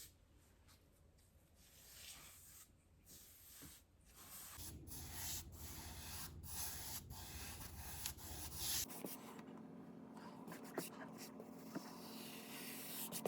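Small paint roller rolling thin, watery primer onto a wall: a soft, faint rubbing hiss that starts about four seconds in and goes on in strokes.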